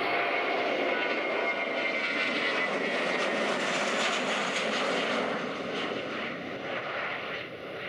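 Airbus A321-200's twin jet engines at takeoff power as the airliner runs past on its takeoff roll: a loud roar with a high whine that drops slightly in pitch as it passes, easing off in the last few seconds as the plane rotates and pulls away.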